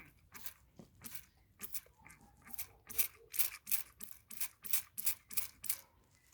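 A lawn mower wheel being scrubbed clean by hand: quick, rasping back-and-forth strokes, about three a second, that stop near the end.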